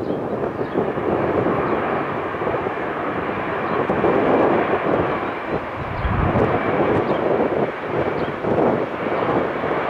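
Jet engines of an arriving Airbus A319-100 airliner, a steady rushing noise that swells a little around the middle.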